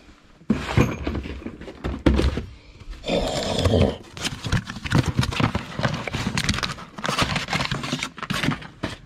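Cardboard parts boxes being handled and pulled off a wooden shelf: repeated knocks and thunks with handling and rustling, including a longer rustling stretch about three seconds in.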